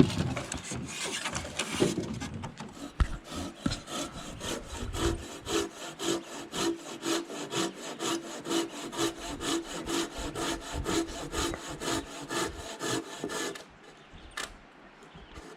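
Hand saw cutting through a piece of firewood in steady back-and-forth strokes, about two a second, stopping near the end.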